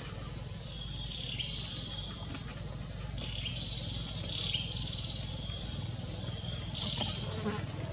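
Forest ambience: a bird calling again and again with short, high whistled notes that step down in pitch, every second or two. A steady low rumble runs underneath.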